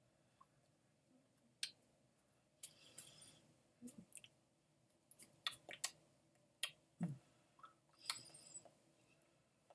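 Near silence broken by scattered faint clicks and a few short hisses, about a dozen in all, with no clear speech.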